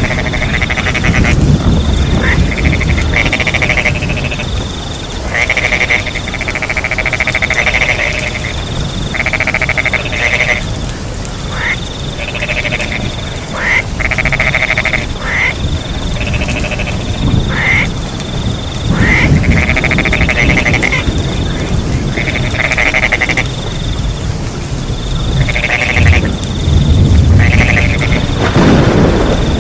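A chorus of frogs calling over and over in short pulsed croaks, with crickets chirping higher up and a steady low rush of rain behind.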